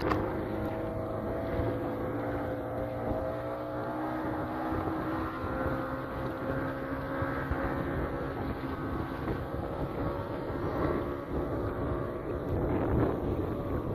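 Boat motor running steadily, a low rumble with a held hum that sags slightly in pitch, with wind buffeting the microphone.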